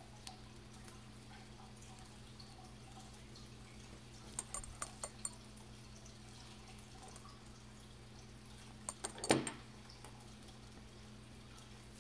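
Small sharp clicks from a Timex Classic Digital watch being handled and its buttons pressed: a quick run of four or five about four and a half seconds in, then a cluster a little after nine seconds ending in a louder knock, over a low steady hum.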